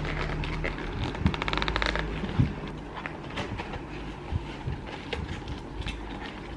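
Snack packaging of Korean traditional taffy being opened by hand: a fast run of crackling clicks about a second in, a knock just after, then scattered light crinkles and taps. A low hum runs under the first two seconds.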